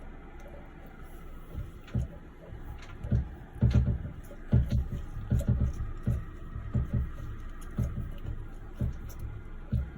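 Irregular series of dull knocks and clunks, about fifteen, from hands working on a toilet cistern's inlet valve and its hose fittings. The knocks start about a second and a half in.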